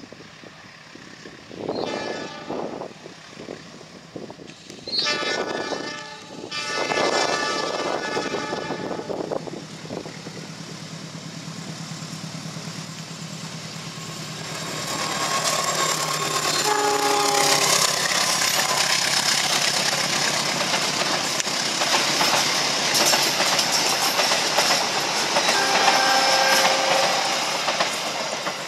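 Diesel locomotive of a passenger train sounding its horn in a few blasts as it approaches, then passing close with its engine running and wheels clattering on the rails, giving two more short horn blasts as it goes by.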